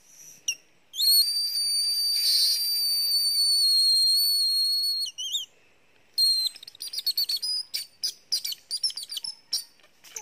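Thin plant-stem whistle blown by mouth as a call to lure snakes. A brief chirp comes first, then one long, steady, high whistle lasting about four seconds, a couple of short chirps, and a run of rapid short chirping notes near the end.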